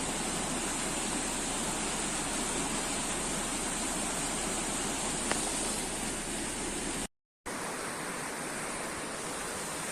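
Steady rain falling, an even hiss of rainfall; the sound drops out for a moment about seven seconds in.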